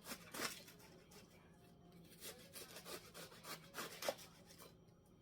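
Knife chopping through a head of lettuce: a run of irregular crisp cuts, about two a second.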